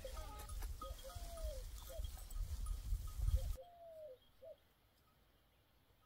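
A dove cooing: a three-note phrase, short, long and arching, then short, repeated about three times. A low rumble, likely wind, runs under the first half and stops abruptly about three and a half seconds in.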